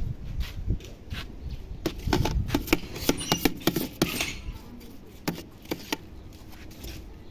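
A wooden spatula scraping and knocking against the inside of a metal ice-cream pot as soft ice cream is stirred and scraped down: a string of irregular clicks and scrapes, busiest in the middle.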